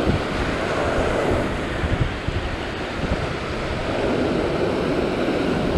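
Ocean surf breaking and washing over a sandstone rock ledge, a steady rush of white water pouring back off the rocks, with wind buffeting the microphone.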